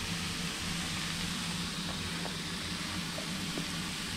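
Sliced mushrooms frying in olive oil in a pan, a steady sizzle with a low steady hum underneath.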